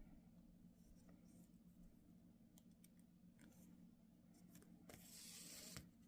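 Near silence with faint handling sounds of hand-basting a zipper into denim: a few small ticks, and about five seconds in a short rasping hiss of under a second, like thread being drawn through the fabric.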